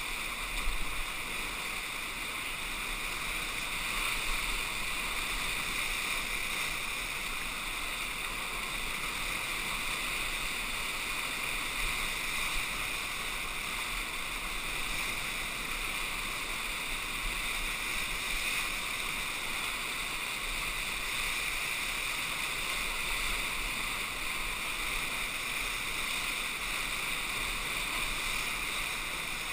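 Steady rush of whitewater rapids around a kayak, with a few brief louder splashes, the first about a second in.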